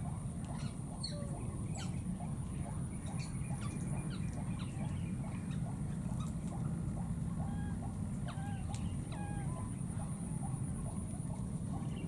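Outdoor wetland ambience: many short chirping animal calls repeating over a steady low rumble, with a thin, steady high-pitched whine above.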